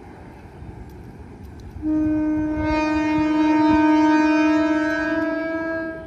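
Diesel locomotive horn sounding one long, steady blast that starts about two seconds in and stops sharply about four seconds later: the long horn signal (semboyan 35) of an approaching train.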